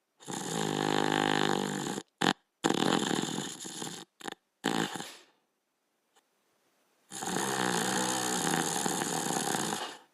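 Border collie snoring in its sleep: a long snore, then several short broken snores, a pause of about two seconds, and a second long snore.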